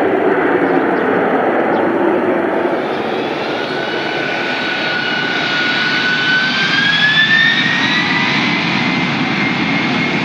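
Jet aircraft engines running loud, with a high whine that rises slowly in pitch from about three seconds in.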